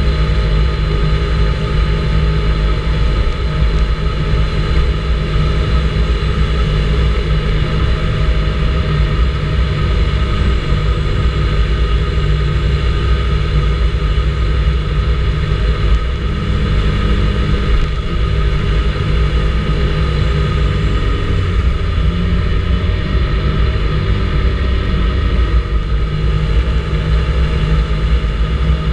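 Vespa GTS 300 ie scooter's single-cylinder four-stroke engine running steadily under way, its pitch shifting a little a little past halfway.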